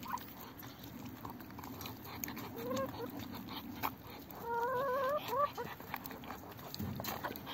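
Muscovy ducks and hens feeding from a plastic tub of wet food, with scattered clicks and taps of bills against the plastic. A bird gives a short rising call about two and a half seconds in, then a longer wavering trill about four and a half seconds in.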